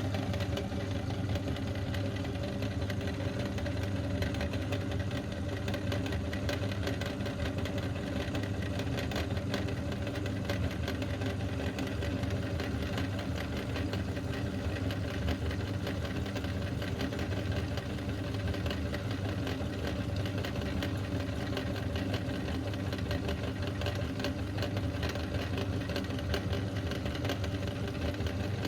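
Meat grinder's motor running steadily while grinding mini Orbeez, a steady hum with a dense fine crackle over it.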